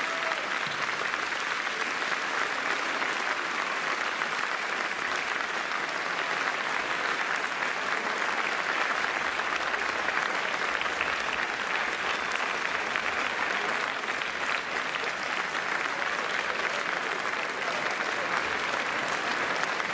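Arena crowd applauding steadily, a long ovation at the close of a badminton match.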